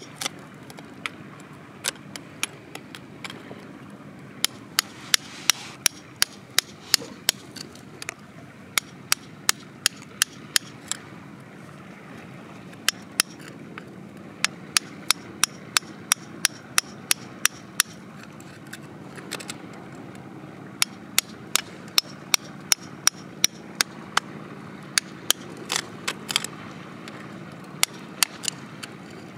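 A metal pick digging and chipping at crumbly rock around an embedded crystal: sharp clicking taps of metal on stone, about two a second in runs, with short pauses about a third and two thirds of the way through.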